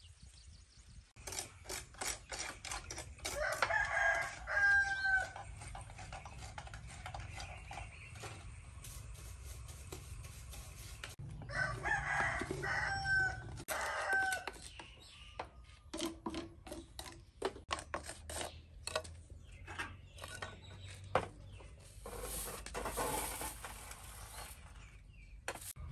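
A rooster crowing, once about four seconds in and again around twelve seconds in, with scattered light clicks and knocks throughout.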